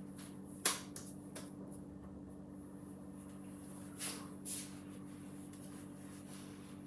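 Soft rustling and swishing of a damp washcloth being handled and wiped over the face, twice briefly near the middle, after a single sharp click about half a second in, over a steady low hum.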